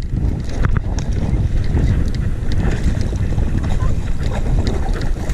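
Wind buffeting the microphone, a steady low rumble, with a few light clicks scattered through it.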